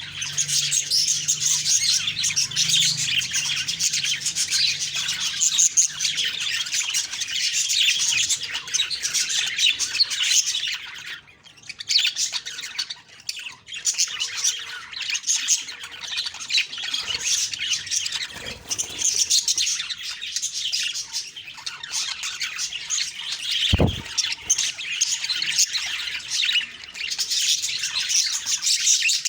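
Budgerigars chattering, a dense run of chirps, squawks and warbles with a short lull about eleven seconds in. A single low thump sounds near the end.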